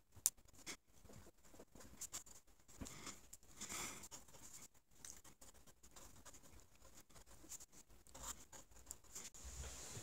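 Faint scratching of a pencil writing on a lined paper pad, in short irregular strokes, with one sharp tap just after the start.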